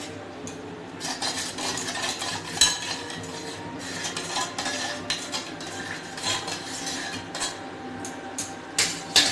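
Metal spoon stirring a wet mustard-paste and coconut-milk mix in a stainless-steel tiffin box, scraping and clinking against the steel sides. The stirring starts about a second in, with a sharp clink a little later and two quick clinks near the end.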